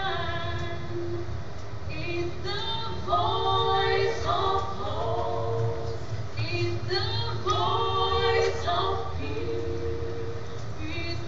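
A choir singing, holding chords in phrases that change pitch every second or two.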